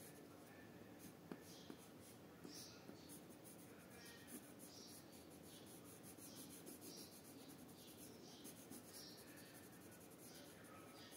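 Faint scratching of a coloured pencil on paper in short, repeated colouring strokes, roughly one or two a second.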